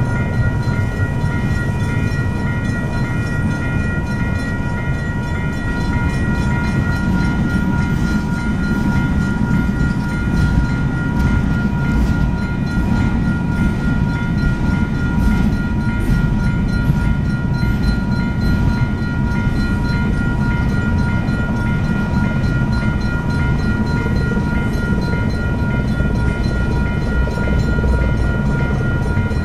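Freight train of TTX intermodal cars rolling steadily past a grade crossing, a continuous low rumble of wheels on rail with occasional clicks. The crossing's electronic warning bell rings without a break over it, since the gates are down and the lights are flashing.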